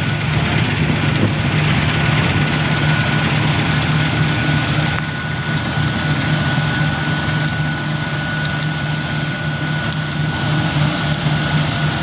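Combine harvester running steadily while cutting standing wheat: a constant low engine drone with the clatter of the cutting and threshing gear. A steady high whine joins about two seconds in.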